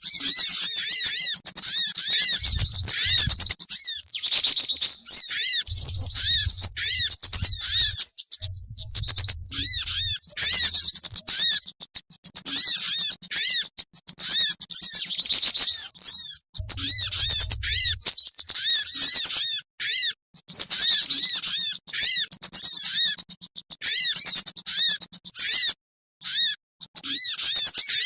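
Bird-lure recording of small songbirds calling: dense, rapid, high-pitched chirping and twittering, looping with a few short breaks.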